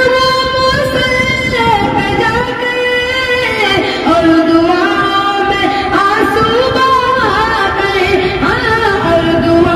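A boy singing a naat through a headset microphone, holding long drawn-out notes that slide up and down in pitch.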